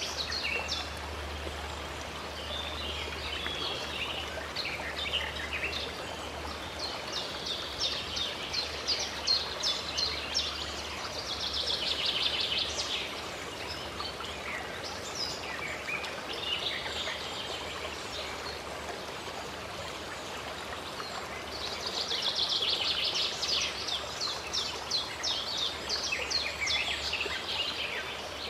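Many birds singing and calling over the steady rush of running water. Two spells of fast, rapid-fire calls stand out, about twelve and twenty-three seconds in.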